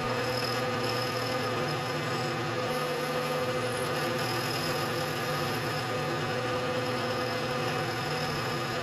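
Vertical milling machine running steadily, its end mill taking a light cut to mill a flat 60 thousandths deep on a small shaft held in a collet block. A steady mechanical hum.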